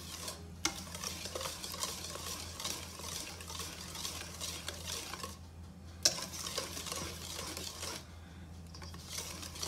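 Wire hand whisk stirring wet chocolate brownie batter in a stainless steel bowl, the wires scraping and clicking against the metal, with two brief pauses.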